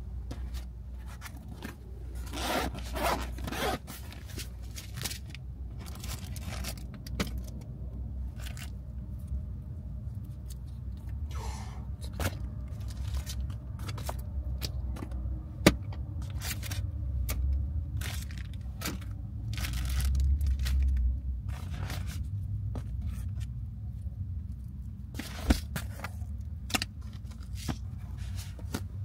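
Insulated soft cooler bag being handled: its zip is drawn open in a few rasping strokes about two to four seconds in, then its contents, ice packs and packaged items, are shuffled about with scraping, rustling and a few sharp clicks. A low steady rumble runs underneath.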